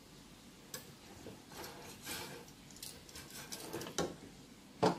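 Metal kitchen tongs clicking and tapping as fried pineapple pieces are picked out of a wire mesh strainer and set on a plate: a few sharp clicks, the loudest near the end, with soft scraping and rustling between.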